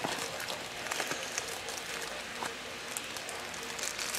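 Faint crackling and rustling of plastic packaging and small toy parts being handled, with scattered small ticks.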